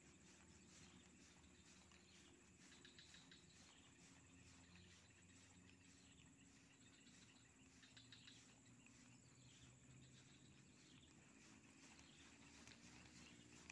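Near silence: faint outdoor ambience with insects chirping in a quick, steady pulse.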